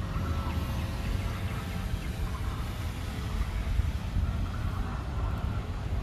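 Steady low rumble of motor vehicle traffic.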